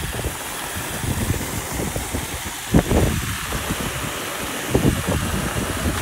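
Several robot vacuums (a eufy RoboVac and iRobot Roombas) running together, a steady whir of motors and brushes. There is a short sharp knock about three seconds in and a couple more near five seconds.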